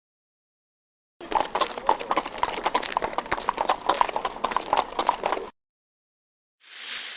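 Horse hooves clip-clopping at a quick trot, a rapid run of hoof strikes lasting about four seconds before stopping abruptly. Near the end a short whooshing hiss starts.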